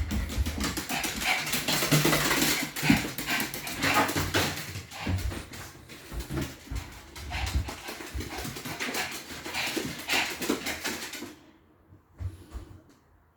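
Dogs moving about, with many irregular short scuffs and knocks; the activity stops abruptly about eleven seconds in, leaving a few faint clicks.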